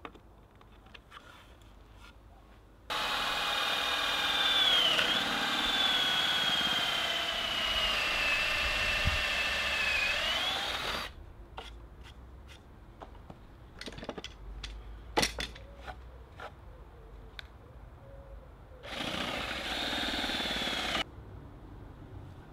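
Cordless drill boring into the softwood table and bench of a homemade shave horse for about eight seconds, its motor whine sagging and recovering in pitch under load, then a shorter two-second run. A few sharp knocks come between the runs.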